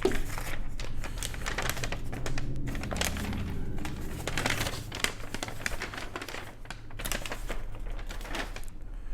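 Paper crinkling and rustling in irregular bursts as a model kit's instruction sheets are handled and unfolded, stopping shortly before the end.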